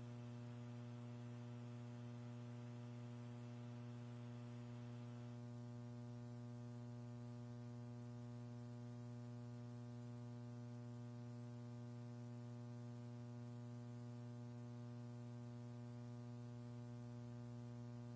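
Steady electrical hum, a constant buzzing tone with many overtones over faint hiss, like mains hum on an audio line; no rocket noise or voice.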